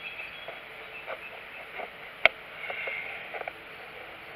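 Cold Steel Fin Bear knife, its thin hollow-ground stainless blade gone dull, shaving feather-stick curls down a stick of fatwood: a series of short, faint scraping strokes, with one sharp click a little over two seconds in.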